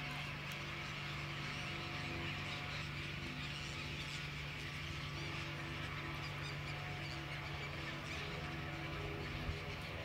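A large flock of gulls calling all at once, a continuous chatter of many overlapping cries, over a steady low hum.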